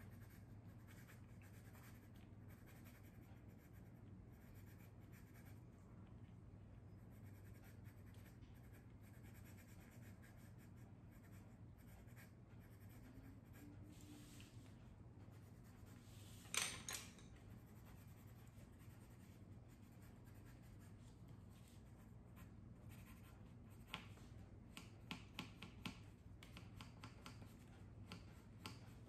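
Faint scratching of a colored pencil stroking on paper, over a low steady hum. There is a single sharp click about halfway through and a run of light taps near the end.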